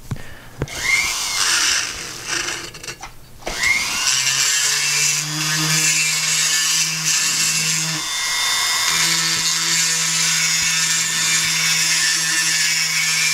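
Handheld high-speed die grinder with a cone diamond burr, chamfering the port edges of a Yamaha 701 two-stroke cylinder. It spins up briefly about a second in, starts again near four seconds, and then runs steadily with a high whine.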